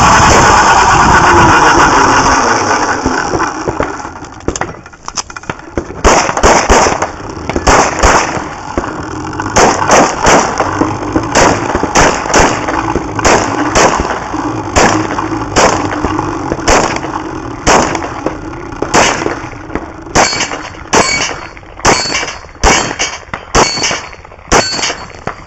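Glock pistol fired at a steady, uneven pace, about thirty shots, single and in quick pairs, beginning about four seconds in. Near the end several shots are followed by the clear ring of steel plates being hit. Before the shooting, a loud rushing noise fades away over the first few seconds.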